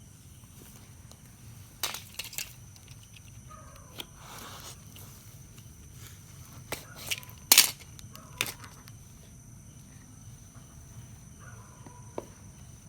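Scattered sharp knocks and clicks of a stingless bee colony box being handled and opened, the loudest about seven and a half seconds in, over a steady background of insects chirping.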